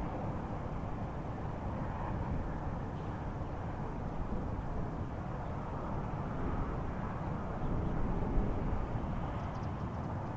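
A steady low rumble from the sky with no clear pitch, which the uploader presents as a strange sound from the sky.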